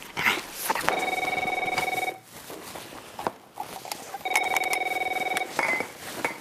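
Mobile phone ringing, two rings of about a second each, about three seconds apart. Between the rings comes rustling and clatter from the handbag it is being searched for in.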